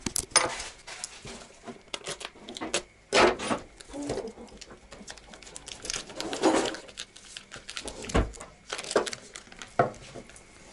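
Clear plastic food packaging crinkling and rustling as it is handled and opened by hand, with scattered clicks and knocks of things on the table.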